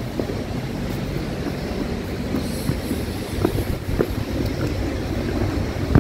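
Footsteps climbing granite stairs: sharp, irregular steps over a steady low rumble.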